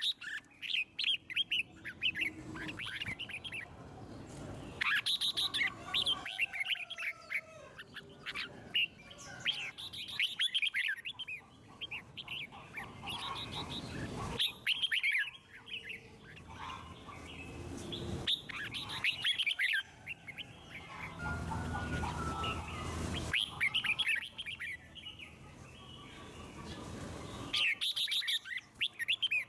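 Red-whiskered bulbul singing: short bursts of quick, bright chirping phrases repeated every few seconds, with pauses between them.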